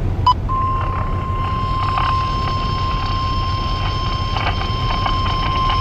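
NOAA Weather Radio warning alarm tone: one steady high beep of about 1050 Hz that starts about half a second in after a short blip and holds unbroken, over a vehicle's low road rumble. The tone signals that a warning broadcast follows, here a severe thunderstorm warning.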